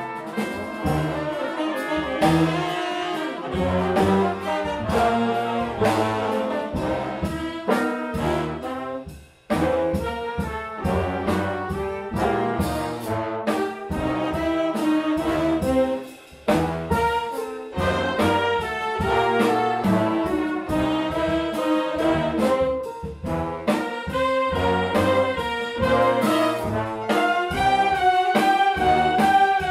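Jazz big band playing an ensemble passage, the brass section of trumpets and trombones leading over bass and drums, with two brief breaks about nine and sixteen seconds in.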